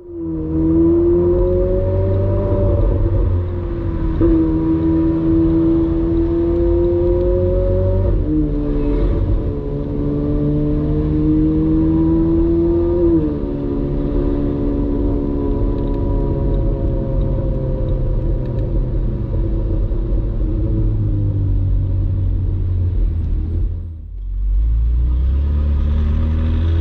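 Ferrari 458 Spider's 4.5-litre V8 running under acceleration, its pitch climbing and then dropping sharply at two upshifts about eight and thirteen seconds in. It then holds a steady cruise, drops away briefly near the end, and climbs again as the car accelerates.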